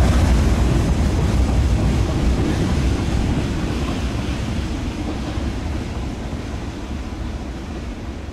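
Freight train rolling past and moving away, its rumble fading steadily.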